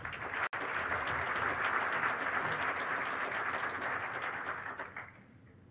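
Audience applauding, with a momentary dropout in the audio about half a second in; the clapping dies away about five seconds in.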